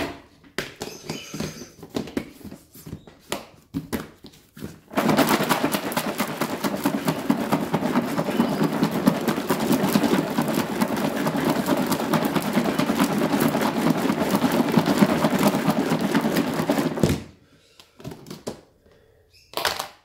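Lidded plastic tub of chopped vegetables, corn kernels and sprouts being shaken to mix it, the food rattling against the plastic continuously for about twelve seconds. Before that come a few scattered knocks and clicks as the lid goes on.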